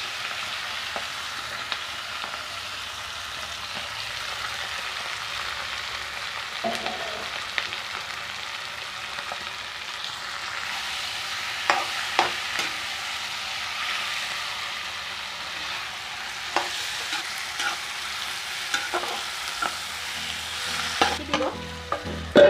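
Onions and spices sizzling in hot oil in a metal kadai, stirred with a spatula that scrapes and clinks against the pan now and then. The clinks come thicker and louder near the end.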